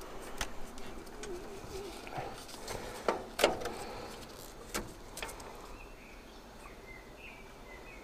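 Scattered sharp clicks and taps as the boiler's control board and its wiring connectors are handled, the loudest two a little after three seconds in. Faint high chirps near the end.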